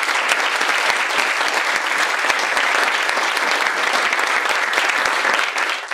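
Audience applauding, a dense steady clapping of many hands that tails off near the end.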